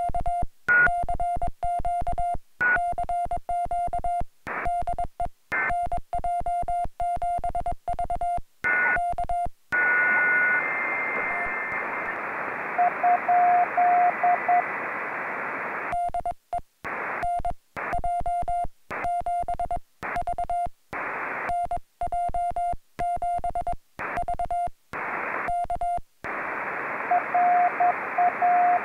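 Morse code on a portable HF transceiver: the operator's own sending as a steady sidetone keyed in dots and dashes, with the receiver muting between elements. Twice it breaks into receiver hiss carrying other stations' Morse tones, about ten seconds in and again near the end.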